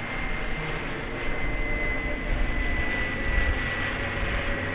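Radio-controlled Spitfire model flying past: its motor and propeller make a steady high whine that sinks slowly in pitch, over a gusty low rumble.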